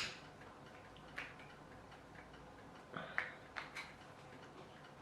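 Scattered sharp clicks and taps of hard plastic as a phone and its tight-fitting 3D-printed clamp are handled: one click about a second in, then a quick cluster of four around three to four seconds in.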